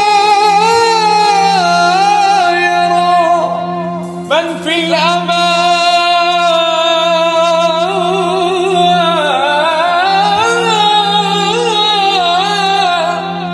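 A man singing a long, ornamented wordless melisma in Arabic devotional style, the melody sliding and turning over a steady low drone. About four seconds in the line dips briefly and sweeps quickly upward before carrying on.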